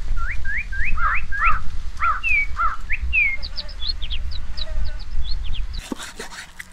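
A small bird chirping a quick run of short rising notes, then a series of higher, shorter notes, over a low rumble. Near the end, a few sharp knocks of a knife cutting fish against a wooden chopping block.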